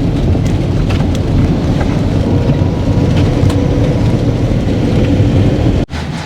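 Steady low rumble of a vehicle driving, with a few small rattles and clicks over it. It breaks off sharply near the end and comes back quieter.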